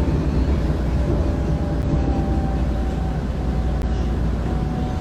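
Steady low rumble inside a moving vehicle, with a faint thin whine that rises slightly near the end.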